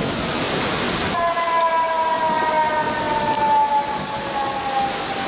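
Floodwater rushing down a street channel. About a second in, a long pitched tone with several overtones starts over the rushing water and slides slowly lower in pitch.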